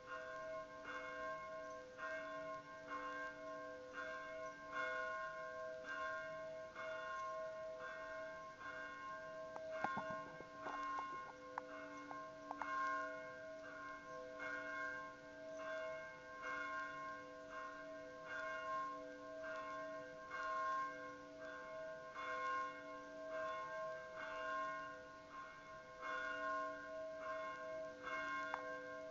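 Church bell ringing steadily, struck about once a second, each stroke renewing a hum that never dies away between strikes. A few short clicks about ten seconds in.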